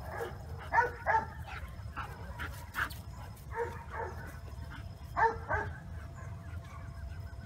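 Dog giving short yips and barks, mostly in quick pairs, over a steady low rumble.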